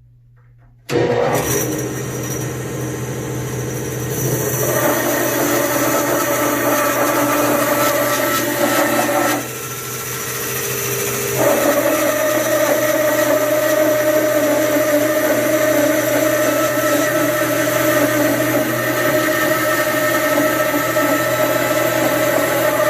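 17-inch bandsaw with a 1-inch, 3 TPI Laguna Resaw King blade resawing a thick 12/4 sycamore board. Loud, steady cutting noise that starts abruptly about a second in, eases for a couple of seconds around ten seconds in, then carries on.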